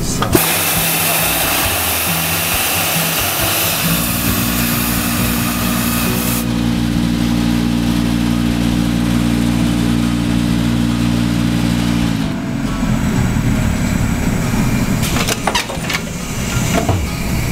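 Tensioning shirt-and-blouse form press steaming a shirt from inside with a loud sudden hiss. About four seconds in, its hot-air blower comes on with a steady hum to dry the shirt. The blower winds down about twelve seconds in, and a few clicks follow near the end.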